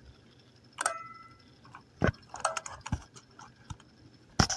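Alligator-clip jumper lead being clipped across the terminals of a refrigerator's defrost bimetal thermostat: a handful of sharp metallic clicks and handling rattles, one with a brief ring, the loudest near the end.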